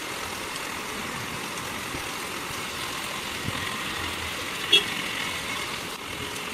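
Steady rain hiss over a wet street, with traffic driving through on the wet road. A brief high-pitched toot comes about three-quarters of the way in.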